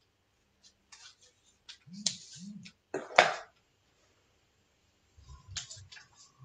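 Several light clicks and clinks, then a sharp knock about three seconds in that is the loudest sound, and a few duller thumps near the end.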